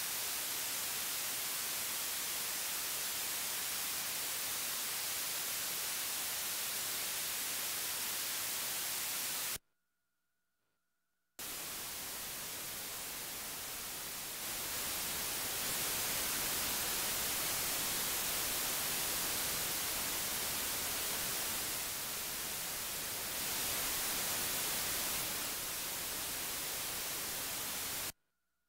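Radio-like analog white noise hiss from a Harvestman Polivoks Modulator, which is based on a Soviet transistor. It cuts off about ten seconds in; after a short silence, digital white noise from a YoMoCircuits PSNOISE module starts, steps louder and softer a few times, and cuts off suddenly near the end.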